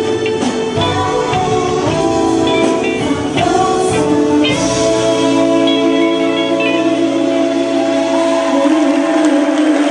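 Live band music with a woman singing. About four and a half seconds in, the low end drops away and the band thins to long held notes under the voice.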